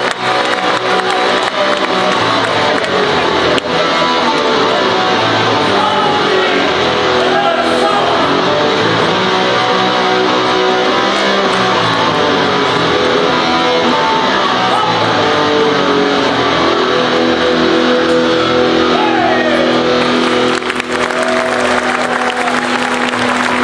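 Instrumental music dominated by plucked strings, playing as dance accompaniment. About twenty seconds in it settles onto a long-held low note.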